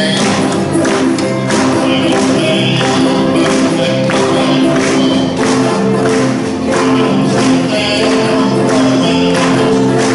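Live band playing with vocals: acoustic guitar, electric keyboard and a drummer on snare with sticks, keeping a steady beat of about two strokes a second. It is played through a single amplifier.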